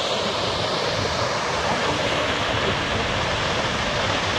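Large waterfall plunging down a cliff: a steady, unbroken rush of falling water.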